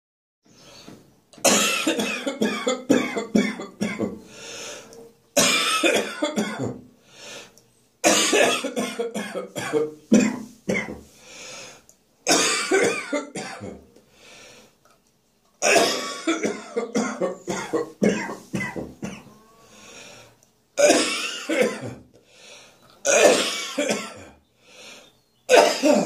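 A person in a hard coughing fit, half coughing and half choking, after inhaling saliva instead of swallowing it. The coughing comes in about eight bouts a few seconds apart, each a burst of several rapid coughs that trails off.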